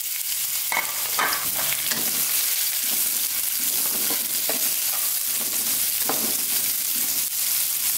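Sliced shallots, garlic and onion sizzling in hot oil in a wok as they are sautéed, with a spatula scraping across the pan in irregular strokes as they are stirred.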